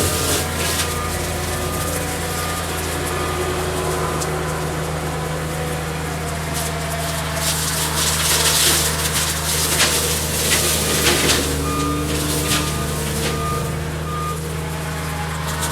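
Cat 279D skid steer's diesel engine running steadily, with its backup alarm beeping in two short spells of evenly spaced beeps as it reverses. Louder rushing noise from the working machine swells in the middle.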